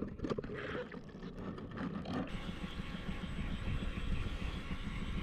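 Outboard engine of a small fishing boat idling with a steady low rumble, heard from on deck. For about the first two seconds the sound is muffled and quieter, picked up underwater beneath the hull.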